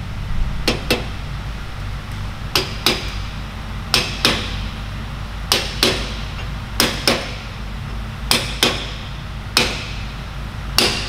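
Hammer tapping a chilled bearing race into a Salisbury differential housing, seating it on its pinion-depth shims. The sharp metal taps come mostly in pairs about every second and a half, each ringing briefly.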